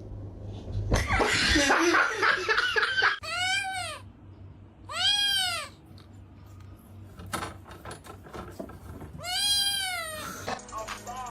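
A domestic cat meowing three times, each a drawn-out call that rises and then falls in pitch. Before the first meow there is a loud burst of what sounds like human laughter.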